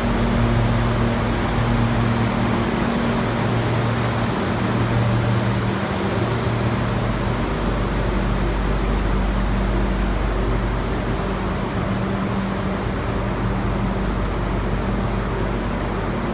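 Machinery fans running with a steady rushing noise and a low, even hum.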